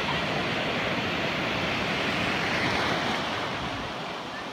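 Small waves breaking in shallow surf: a steady rush of whitewater that swells a little in the middle and eases near the end, with wind buffeting the microphone.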